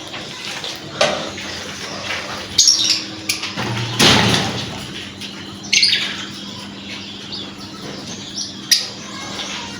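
Lovebirds in an aviary giving short, high chirps now and then, with a few sharp clicks and a loud rustle about four seconds in, over a steady low hum.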